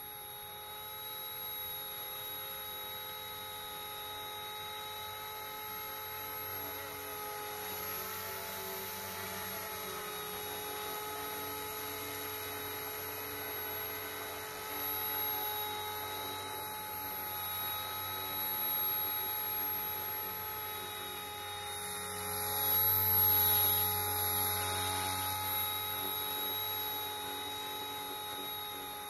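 C138 micro collective-pitch RC helicopter flying: a steady, high-pitched whine from its electric motor and spinning rotors, with slight shifts in pitch as it manoeuvres. It swells louder for a couple of seconds about two-thirds of the way through.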